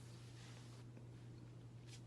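Near silence: room tone with a steady low hum and faint soft hiss.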